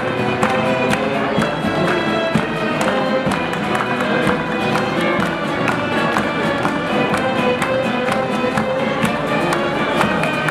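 Street folk ensemble of many violins with guitar and clarinet playing a lively folk tune in unison, with a steady beat.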